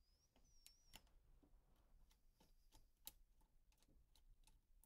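Near silence, with faint, scattered small clicks of a screwdriver and steel parts as the grip-frame screws of a revolver are loosened.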